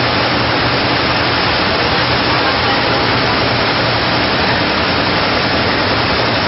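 G-TEK high-speed industrial multi-needle chainstitch smocking and shirring machine running steadily, a dense even whir with a faint low hum underneath.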